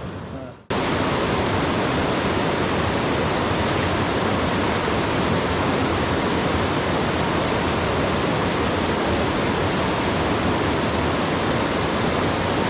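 Steady rushing of a fast mountain river or waterfall in high winter water, starting abruptly just under a second in.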